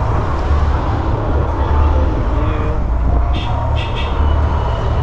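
Steady wind rumble on the microphone while riding an e-bike, with a few short faint sounds about three and a half seconds in.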